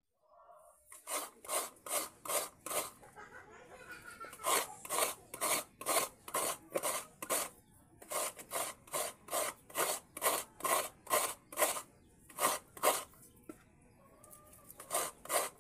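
Mature coconut half being scraped over the serrated metal blade of a kudkuran, a bench-mounted coconut grater: rhythmic rasping strokes, about two or three a second, in runs with short breaks between them.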